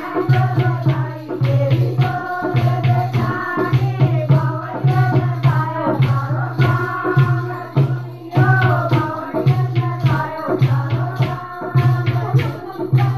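Group of women singing a folk song together to a steady drum beat and rhythmic hand clapping.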